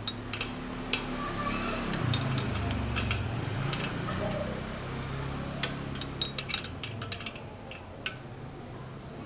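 A wrench clinking against a bolt and the metal radiator bracket as the bolt is tightened: scattered, irregular sharp metallic clicks. A low hum runs underneath and swells in the middle.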